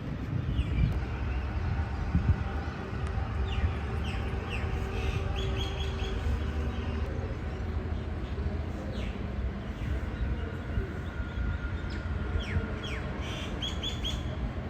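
Birds chirping in two clusters of short, quick notes over a steady low outdoor rumble.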